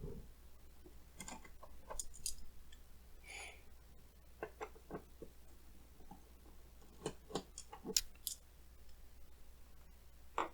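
Faint, scattered clicks and small scrapes of a Phillips screwdriver turning the case screws loose, with a few sharper ticks about two seconds in and again around seven to eight seconds in.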